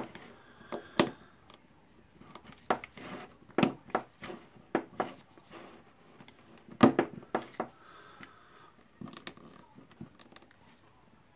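A screwdriver prying at the steel ring spring on a Bosch PBH 3000-2 rotary hammer's mechanism: irregular metal clicks and short scrapes, the loudest about seven seconds in.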